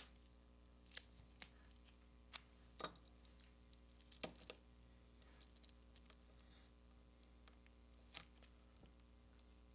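A small die-cast metal toy vehicle being handled in gloved hands, with faint scattered light clicks and taps. The loudest click comes about eight seconds in.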